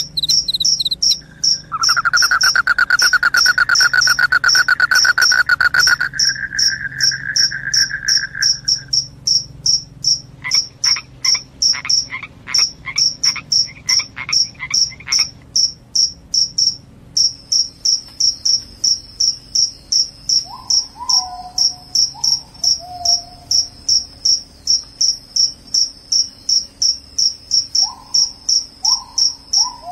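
Crickets chirping in a high, even rhythm of about two to three chirps a second. For the first several seconds a second, lower-pitched continuous trill runs over it, and a few short lower calls come in later.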